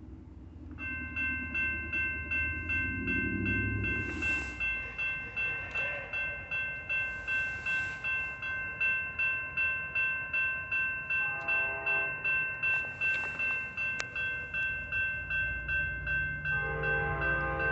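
Railroad grade-crossing warning bell starts about a second in and rings steadily at about two strokes a second as the crossing gates lower. An approaching train's horn sounds twice under it: briefly around the middle, then again near the end.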